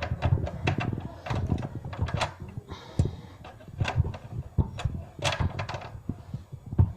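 Bolts on a treadmill's massager unit being tightened with a key: a run of irregular metal clicks and taps.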